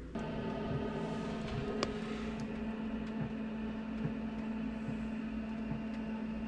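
Diesel air heater's blower fan running with a steady hum during a restart attempt, stepping up louder just after the start and then holding steady, with a few faint clicks. The heater is failing to light: no flame ignition is heard.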